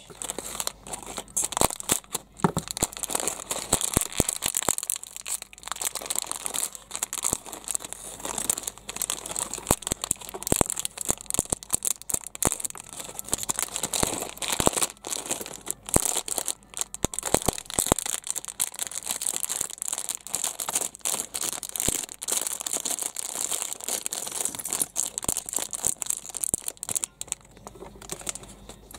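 Thin clear plastic bag of small toy building-brick pieces crinkling and crackling as hands handle and open it, with many small clicks throughout.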